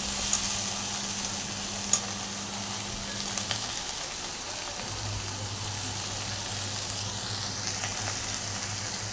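Minced-meat samosa filling sizzling as it fries in a karahi, being cooked down until its water dries off, with a spatula clicking against the pan a few times. A steady low hum runs underneath.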